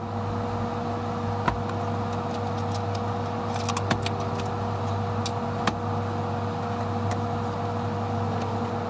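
A steady mechanical hum, with a few sharp clicks and taps as a cardboard shipping box is handled and slit open with a box cutter.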